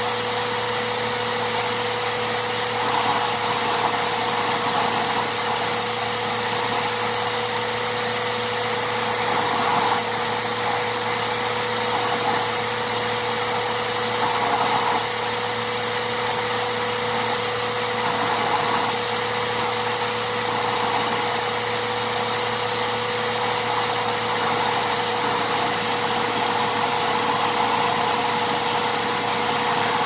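Vacuum cleaner running steadily, a constant motor whine over rushing air; the airflow swells and eases every second or two.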